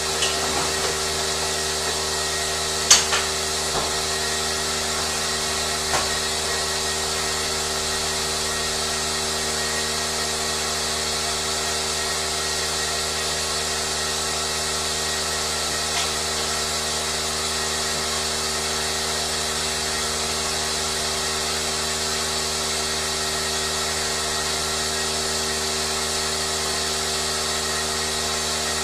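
Steady drone of running machinery holding a few fixed tones, with a handful of sharp clicks and knocks in the first several seconds.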